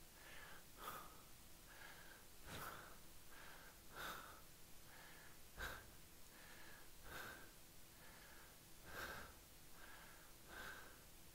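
A man breathing deeply and steadily while holding a side plank: soft, faint breaths in and out, about one every second or less.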